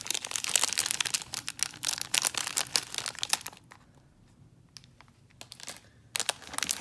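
Candy packaging crinkling and rustling as it is handled, dense for the first few seconds, then a quiet spell, then crinkling again near the end.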